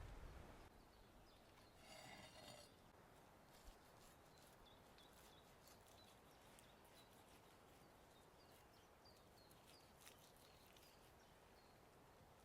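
Near silence: faint outdoor ambience with small birds chirping, one short call about two seconds in and then a string of soft high chirps, with a few light ticks mixed in.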